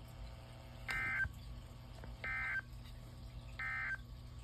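Emergency Alert System end-of-message code: three short bursts of buzzing digital data tones, about a second and a half apart, signalling that the alert message is over.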